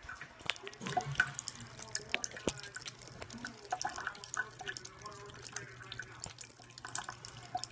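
Bathroom sink faucet running a thin stream, with irregular small drips and splashes as a cat laps water straight from the tap. A steady low hum runs underneath.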